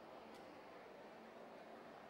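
Near silence: faint steady room noise, with one faint tick about a third of a second in.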